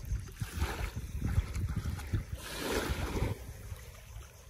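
Waves washing at the sea's edge with wind buffeting the microphone, and one louder surge of water a little past halfway.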